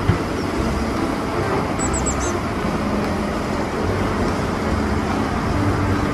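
Large Caterpillar wheel loader's diesel engine running steadily under load as it tips a bucket of earth into a dump truck, the engine noise mixed with the rush of pouring material.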